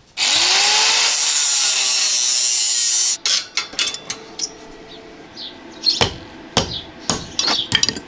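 Angle grinder starting up and cutting into steel tube for about three seconds, a loud hiss over a whine that rises and then holds steady, stopping abruptly. After it comes a scatter of sharp metal knocks.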